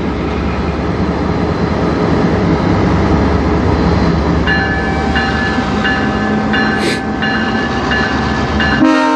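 Diesel freight locomotives approaching with a loud, steady engine rumble. About four and a half seconds in, a bell starts ringing in a repeating pattern. Right at the end the locomotive horn begins to blow.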